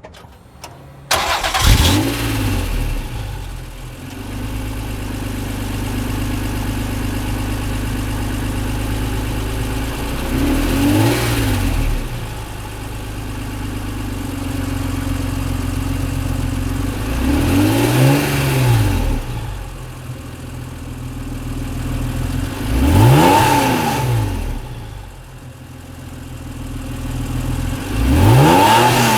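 Acura NSX V6 engine through a Comptech exhaust starting about a second in, flaring, then idling steadily between four quick blips of the throttle that rise and fall in pitch, the last near the end.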